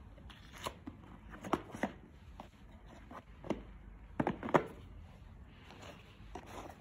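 Black cardboard gift boxes being handled, lifted and shuffled against one another: irregular light knocks and taps, with a quick cluster of sharper knocks about four seconds in and a soft scraping rustle near the end.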